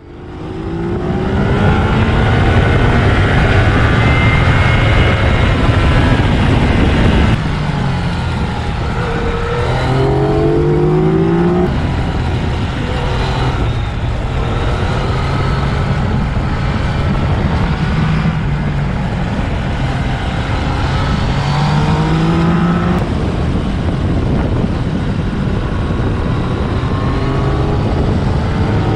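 Yamaha XSR900's three-cylinder engine pulling hard under a rider, its revs climbing and falling again and again as the bike accelerates and backs off through the bends. The sound fades in at the very start.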